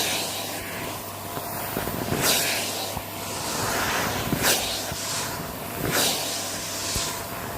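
Close-miked crunching, a hissy crunch every second or two.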